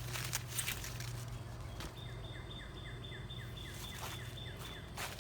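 A bird singing a quick run of about a dozen short downslurred notes, about five a second, over a thin steady high note, starting about two seconds in. A few brief rustles and cracks from the corn stalks and leaves being handled come through it.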